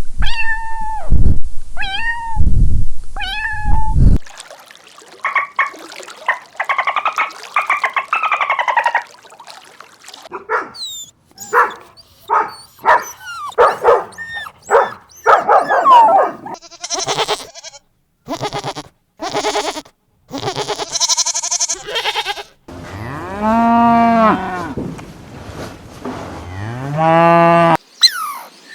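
A run of separate animal sounds cut one after another: short meow-like calls at the start, a stretch of varied short calls and clicks in the middle, and two long cow moos near the end.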